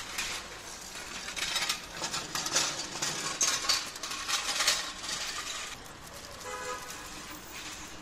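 Wiring and small metal parts being handled, clinking and rustling in quick irregular clicks and scrapes that die down after about five and a half seconds.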